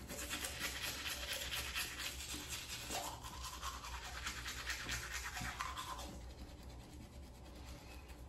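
Manual toothbrush scrubbing teeth in quick back-and-forth strokes, thinning out after about six seconds.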